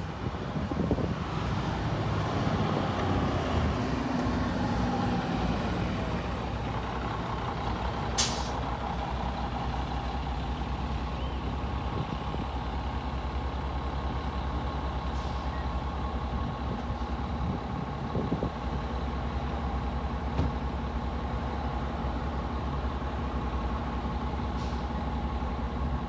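Orion V transit bus engine running as the bus moves through the intersection, with a steady drone. About eight seconds in there is a short, sharp hiss of air from the brakes.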